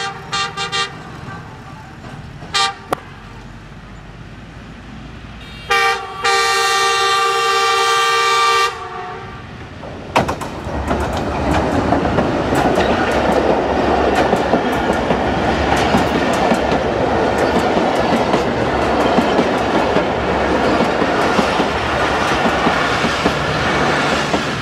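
Passenger train's locomotive horn sounding a few short toots, then one long blast of about three seconds; about ten seconds in the train reaches the camera and its coaches pass close by over a steel girder bridge, a loud steady rumble of wheels on rail with rapid clicks of the rail joints.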